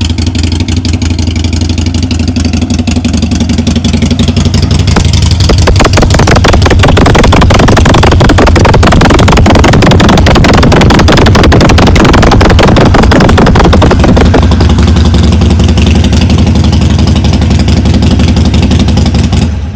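Harley-Davidson Sportster's air-cooled V-twin running through Vance & Hines slip-on mufflers, with a deep, throaty exhaust note. It is loudest and roughest from about five to fifteen seconds in, heard close at the muffler, then settles to a steadier idle and cuts off right at the end.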